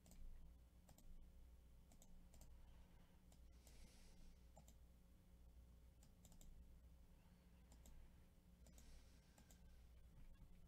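Faint computer mouse clicks, scattered and irregular, over a low steady electrical hum.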